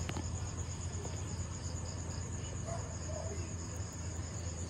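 Crickets chirping in a continuous, evenly pulsing high trill, over a steady low hum.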